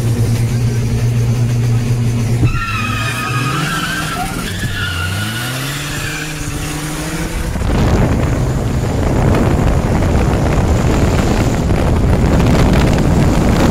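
Modified VW Polo 1.9 TDI diesel with a big turbo and straight-piped exhaust: the engine holds steady revs, then pulls away, its pitch rising through gear changes, with a wavering high squeal above it. About eight seconds in this gives way to a loud, even rush of wind and engine noise at speed.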